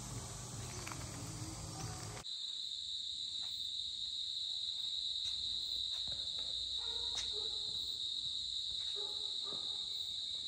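Steady high-pitched insect drone, a chorus of cicadas or crickets, taking over after a cut about two seconds in. Before the cut there is broad background noise with a low hum.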